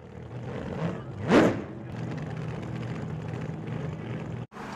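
Engine running steadily, with one loud rising whoosh about a second in; the sound cuts off abruptly near the end.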